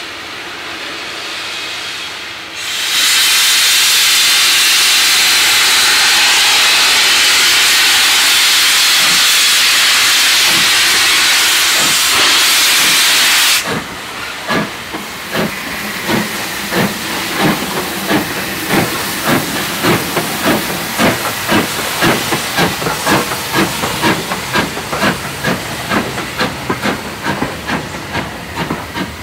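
Steam locomotive pulling away: a loud steady hiss of steam from its open cylinder drain cocks for about ten seconds, which stops abruptly, then the chuffs of its exhaust, quickening to about two or three beats a second.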